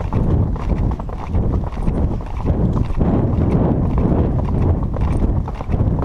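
A ridden horse's hoofbeats on a dirt forest trail, going on steadily without a break.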